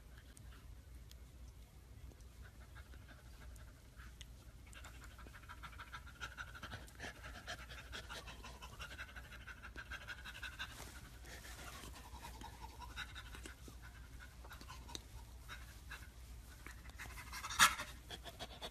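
Soft, breathy panting from a chimpanzee. Through the middle runs a faint, high, wavering whine, and a single sharp click comes near the end.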